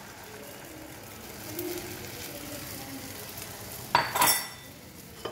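Beaten egg frying gently in a nonstick frying pan over a low gas flame, a soft steady sizzle. About four seconds in, two sharp clinks of kitchenware knock against the pan or a dish.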